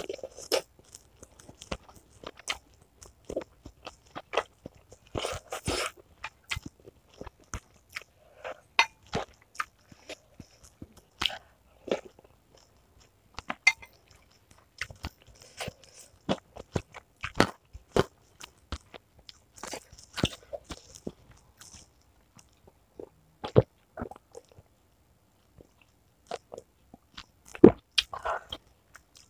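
Close-up chewing and crunching of food, irregular crisp crunches and wet mouth sounds from eating meatballs with crunchy chicken cartilage.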